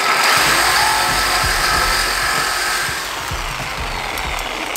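Reciprocating saw grinding against a Porsche Cayman's stock exhaust pipe, its blade barely getting through the metal. It is loudest for about the first three seconds, then a little quieter.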